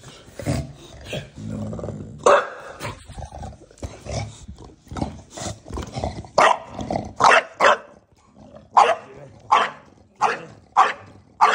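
English bulldog grumbling and growling low, then from about halfway barking in a run of short, sharp barks, roughly one every second or less.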